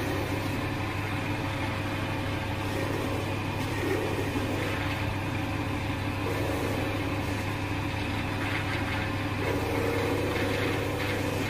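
Record Power wood lathe running with a steady hum while a small homemade high-speed-steel skew chisel (micro meisel) takes light cuts on a spinning juniper spindle. The cutting noise comes and goes on top of the motor hum.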